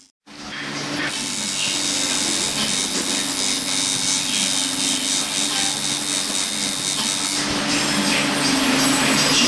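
Electric tattoo machine buzzing steadily as the needle works on the skin, starting just after a brief cut to silence.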